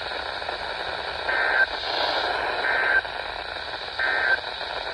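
NOAA Weather Radio EAS end-of-message signal: three short, identical warbling digital data bursts (the SAME 'NNNN' EOM code) about 1.3 seconds apart, over steady radio static. It marks the end of the severe thunderstorm warning message.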